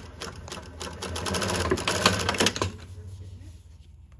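Twin-needle industrial lockstitch sewing machine with a direct-drive motor stitching through thick folded denim: a fast, even run of needle strokes over a low motor hum. It is loudest in the middle and goes quieter after about three seconds.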